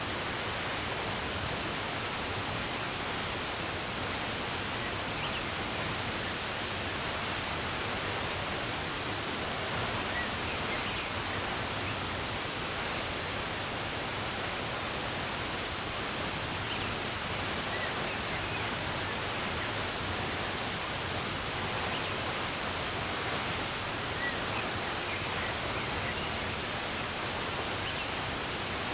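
Running water rushing steadily, with a few faint, short bird chirps now and then.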